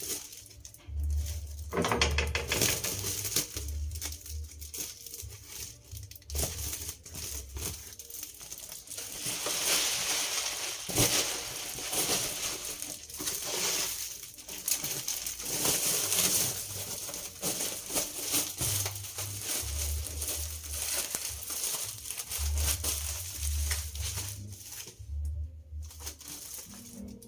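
Rustling and crinkling handling noises with scattered clicks and knocks, typical of kitchen cleaning, over background music with a low bass line.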